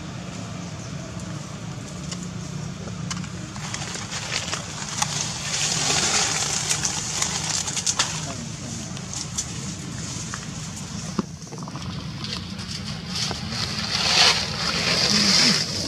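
Macaques moving through dry leaf litter: rustling and crackling of leaves and twigs with scattered clicks, loudest near the end, over a steady low hum.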